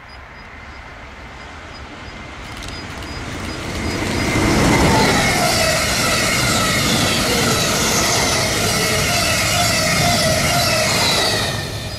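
A train approaching and passing. The rumble builds over the first few seconds, then holds loud with whining tones that slide slowly down in pitch, and cuts off suddenly near the end.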